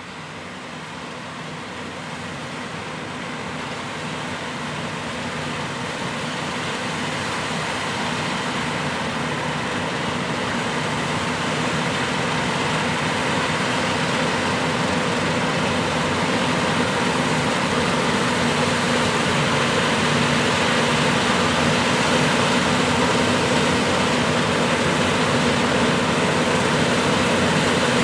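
John Deere S790 combine harvesting wheat: a steady machine drone with a low hum, growing gradually louder throughout.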